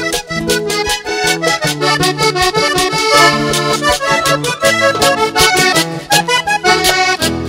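Instrumental break of a live band, with accordion playing the melody over a bass line and steady percussion.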